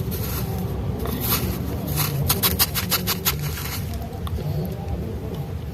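Spoon scraping through a bowl of shaved ice, with a quick run of about eight sharp clicks around the middle.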